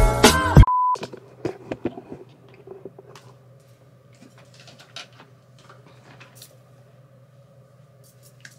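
Hip-hop intro music cuts off abruptly under a second in, followed by a short steady beep. Then quiet room tone with a low hum and faint scattered rustles and small clicks.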